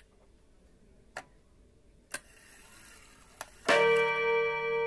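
Seiko 30-day striking wall clock movement ticking about once a second. About three-quarters in, its hammer strikes the gong once, and the gong rings on with a steady low tone and many overtones.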